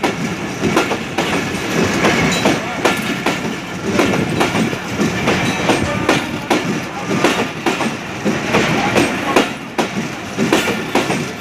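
Diesel locomotive and train rolling past at close range, its wheels clacking over rail joints in a rapid, irregular run of knocks over the rumble of the moving train.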